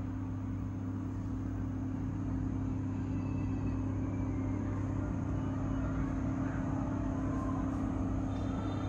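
Kalpen K15 air fryer oven running with the microphone held close to it: a steady fan whir over a low, even hum, which the seller rates at about 60 decibels.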